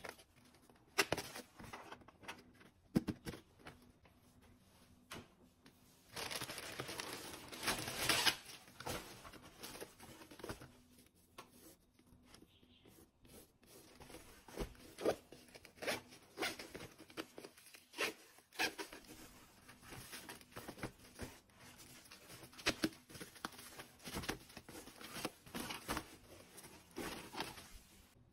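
Packaging being handled: plastic bags and wrapping crinkling and rustling, with scattered light taps and clicks, and a longer, louder rustle about six to nine seconds in.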